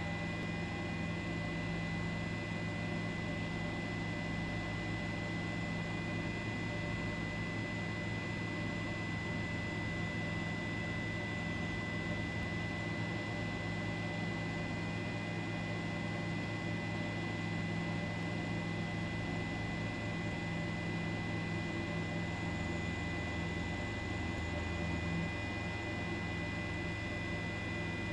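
Steady hum and hiss with a thin, constant high tone, unchanging all along.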